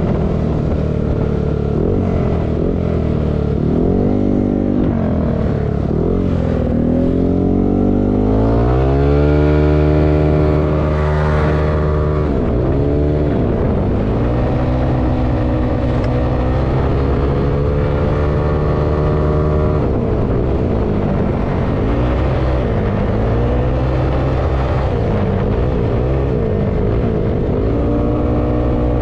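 Yamaha Aerox scooter's 195cc single-cylinder engine under way, heard from the rider's seat, its pitch rising and falling with the throttle. It climbs strongly about eight seconds in, then dips and rises again several times.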